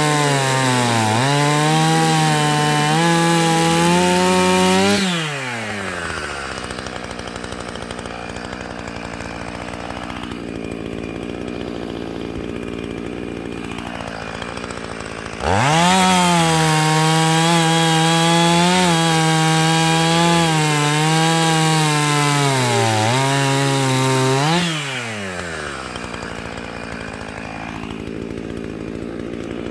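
Two-stroke chainsaw cutting firewood at full throttle, its pitch dipping and recovering under the load of the cut. About five seconds in it drops to idle, revs back up about halfway through for roughly nine more seconds of cutting, then falls back to idle near the end.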